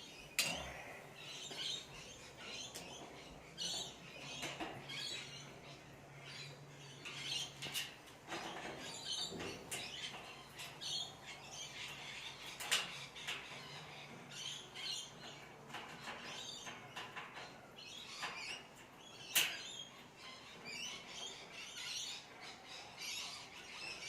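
Small birds chirping over and over in the background, with a few sharp metallic clicks from a door lock being worked and tested.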